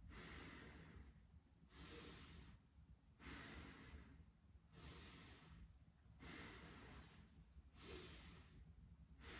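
Faint, slow, deep breaths in and out, about six airy swells of roughly a second each with short pauses between, a patient breathing deeply for lung auscultation.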